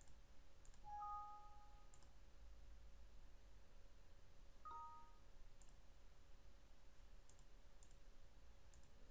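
Near silence, broken by a few faint computer mouse clicks and two soft two-note Windows system chimes, one about a second in and a shorter one just before five seconds in, which mark the format dialog's prompts.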